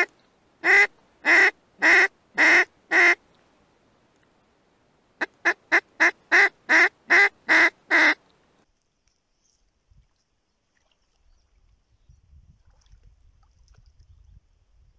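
Hand-blown duck call imitating a hen duck's quacks to lure drakes: six loud, evenly spaced quacks, then after a short pause a quicker run of about nine.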